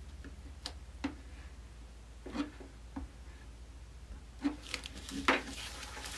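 Light taps and rustles of thin plastic as a tacking iron is pressed along the edge of a Ziploc bag to heat-weld a divider inside it. Louder rustling comes about four and a half to five seconds in as the bag is handled, over a steady low hum.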